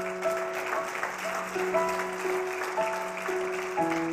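Keyboard playing slow, sustained chords, with the congregation clapping and cheering under it.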